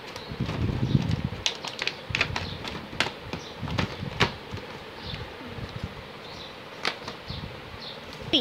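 Cardboard and plastic toy packaging being handled: rustling and scuffing, with a dozen or so scattered sharp clicks and taps.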